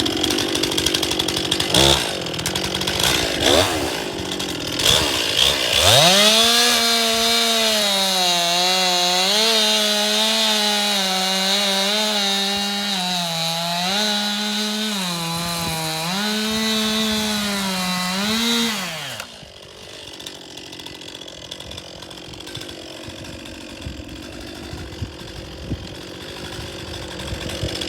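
Stihl MS 261 two-stroke chainsaw cutting, its pitch dipping and recovering again and again as it works under load. About two-thirds of the way through it drops away sharply to a much fainter steady noise.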